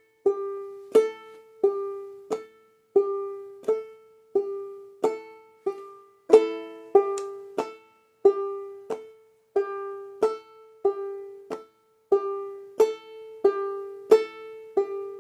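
Banjolele played slowly in clawhammer style: a steady run of single plucked notes, about one and a half a second, each ringing briefly. The nail strikes a string, then the thumb, already resting under tension on another string, rolls off it.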